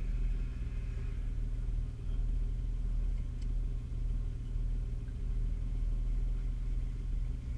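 Nissan Patrol's engine idling steadily, a low even rumble heard from inside the cabin.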